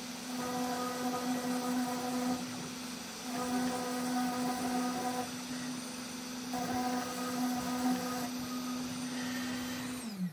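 Genmitsu PROVerXL 4030 V2 CNC router engraving MDF with a V-bit. The spindle runs with a steady whine, joined by a higher-pitched hum that comes and goes in stretches of about two seconds as the machine moves. At the very end the spindle winds down as the engraving job finishes.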